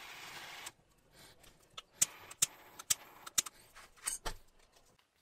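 A steady noise cuts off under a second in, followed by a scatter of sharp metallic clinks and clicks, about eight in three seconds, as copper bus bars and terminal hardware are handled on the battery cells.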